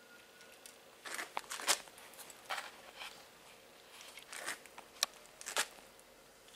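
A cat crunching dry kibble from a metal bowl, in four short bursts of sharp crunches with pauses between.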